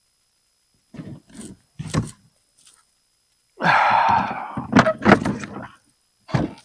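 Wooden barn door being handled and knocked into place: a few separate knocks and thumps, a short scraping rattle about halfway through, then more knocks near the end.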